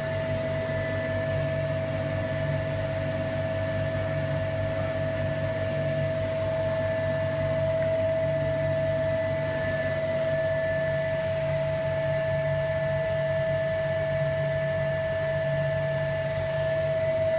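Vacuum pump running steadily, drawing vacuum on the resin infusion mould: a low hum with a constant high-pitched whine over it.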